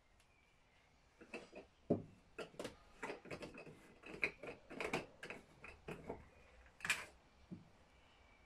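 Hands handling plastic screw caps and a plastic fuel canister: a quick series of clicks, taps and knocks over about six seconds, loudest about two seconds in and again near the end.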